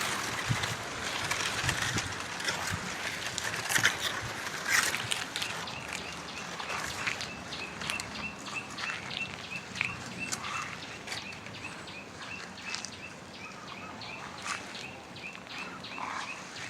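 Footsteps crunching on dry leaves at a slow walking pace, with a steady run of short high animal calls starting about six seconds in and going on to near the end.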